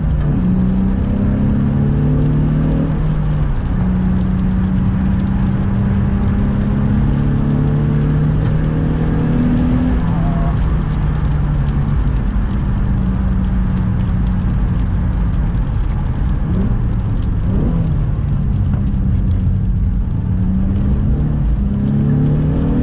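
Infiniti G35 coupe's V6 engine under hard driving, heard from inside the cabin. Its note steps up and down as it revs and shifts gears, with rising revs near the end.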